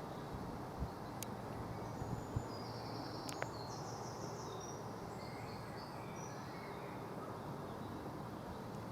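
Small birds chirping and singing in short high runs of notes over a steady low background rumble, with a few faint clicks.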